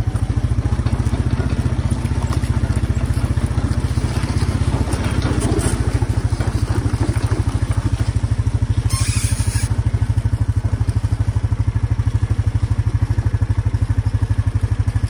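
ATV engine running at a steady, even pitch as the quad rolls along, with a brief hiss about nine seconds in.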